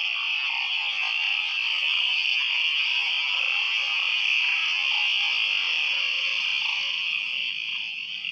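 Dense night-time chorus of frogs, a steady high-pitched din that eases a little near the end.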